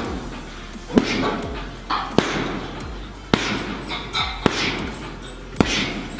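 Boxing gloves landing single hooks on a heavy punching bag: five solid thuds, about one a second, evenly paced.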